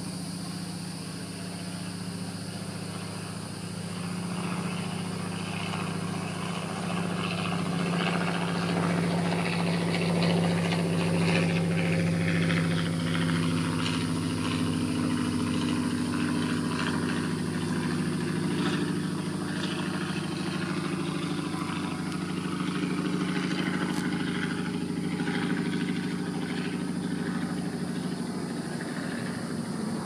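A motor engine running steadily with a low hum that drifts slightly in pitch, getting louder about four seconds in.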